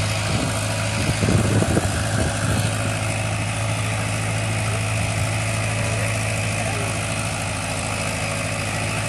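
Farmtrac 6055 tractor's diesel engine running steadily under load as it pulls two weighted disc harrows through the soil, with a short patch of louder knocking about one and a half seconds in.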